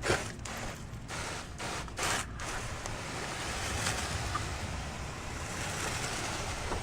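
Steady rushing hiss of spraying or splashing water, with a few brief dropouts in the first two and a half seconds.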